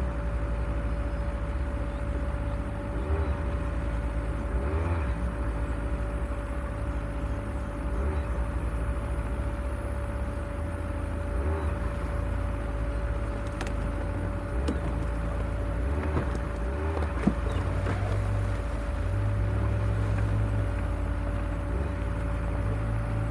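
Off-road vehicle's engine running low and steady as it crawls along a rough forest trail, with its level rising and falling. A few sharp knocks and clicks come between about 13 and 18 seconds in.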